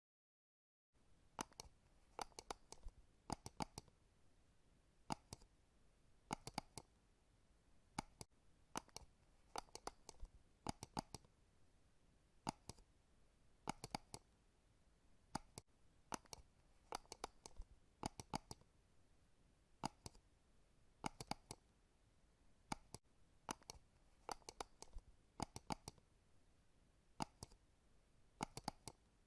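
Computer mouse button clicking: short, sharp clicks, often in quick pairs or runs of two or three, at irregular intervals, starting about a second in.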